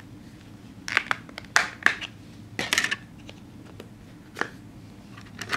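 Sharp plastic clicks and short scrapes from an LG G3 phone being handled: its snap-on back cover and removable battery worked by hand. The clicks come in a cluster from about one to three seconds in, then one more near four and a half seconds.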